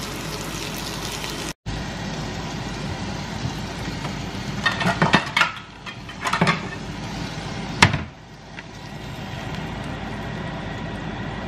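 Sausage patty sizzling on the hot plates of a mini waffle maker, a steady hiss. Utensils clatter a few times in the middle, and a sharp click near the end of the middle is followed by the sizzle dropping and slowly building again.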